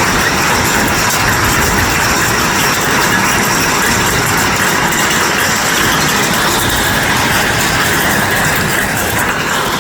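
Hail and heavy rain falling: a loud, steady, dense pattering of countless small impacts.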